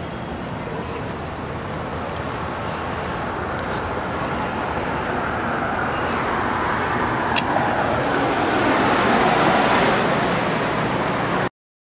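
City street traffic noise: a steady rushing that slowly swells, with a few faint clicks, then cuts off abruptly near the end.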